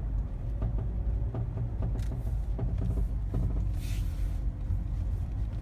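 Mazda 3 (BM) driving slowly, heard from inside the cabin: a steady low road and engine rumble with irregular light knocks from under the car, with a brief hiss about four seconds in. The owner suspects the knocking comes from the engine skid plate (crankcase guard), which he thinks rattles when snow or ice freezes in its gaps in sub-zero weather.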